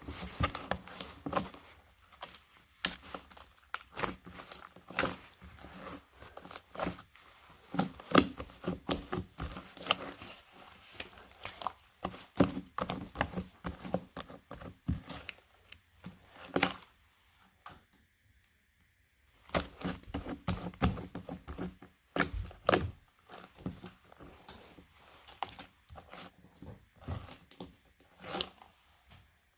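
Slime being squished and pulled by hand, making a dense run of irregular sticky clicks and pops, with a pause of a couple of seconds just past the middle.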